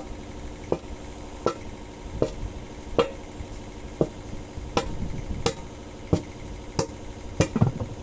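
Hammer blows on a tractor wheel rim and tyre bead: a steady series of sharp strikes, a little under one and a half a second, with two quick blows close together near the end.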